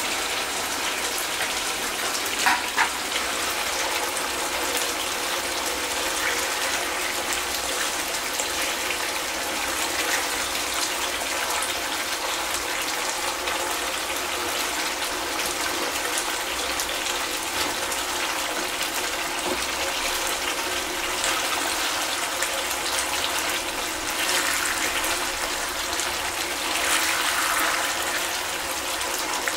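Sweet-and-sour sauce simmering and sizzling in a frying pan around fried barracuda steaks, a steady hiss. A couple of sharp knocks about two and a half seconds in, and a few louder spells of sizzle later as the fish is moved with a spatula.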